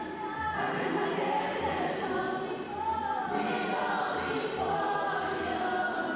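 A church choir singing together, holding long notes that slide from one pitch to the next.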